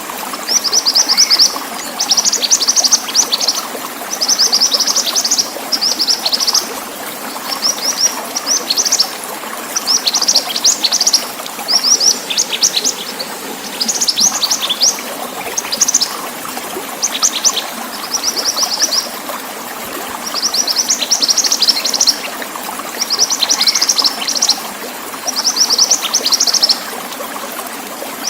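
Mantenan songbird singing: bursts of rapid, high trilled notes about a second long, repeated with short pauses, over a steady sound of running water.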